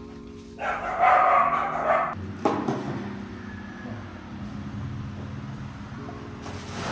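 An animal's harsh, noisy cry lasting about a second and a half, starting just under a second in, followed by a single knock. Background music with long held notes plays underneath.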